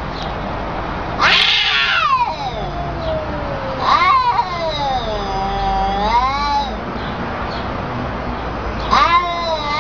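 Domestic cats in a face-off, yowling in long drawn-out threat calls whose pitch wavers up and down. There are three such yowls: one about a second in that opens with a harsh noisy burst, one about four seconds in, and one near the end. These are the warning yowls of a territorial confrontation between two cats.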